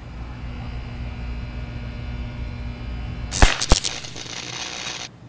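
Steady electrical hum from high-voltage gear on a utility pole. About three and a half seconds in, several sharp cracks within half a second as an electric arc flashes where a red-bellied woodpecker has shorted across the line, then a hiss that cuts off about a second and a half later.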